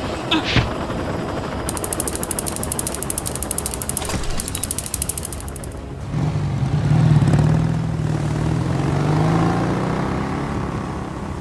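Rapid, even chopping of a helicopter rotor. About six seconds in, a jet ski engine comes in with a low, strong hum, and its pitch rises as it revs.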